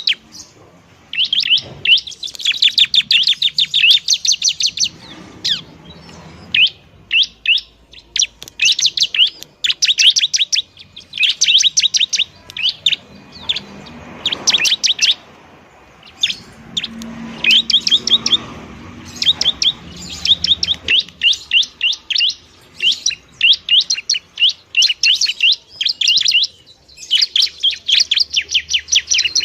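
Bar-winged prinia (ciblek) singing loudly and busily: rapid trains of sharp, high chirps, each burst lasting a second or two, repeated again and again with short pauses.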